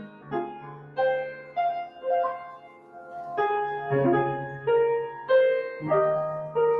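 Solo upright piano played slowly, with notes and chords struck about once or twice a second and each left to ring. It is softer a couple of seconds in and grows fuller and louder in the second half.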